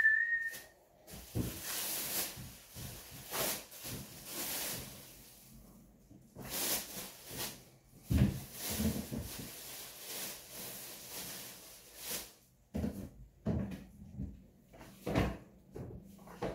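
Paint roller being worked over a surface: a run of noisy swishes, roughly one a second, with a few knocks and clicks near the end.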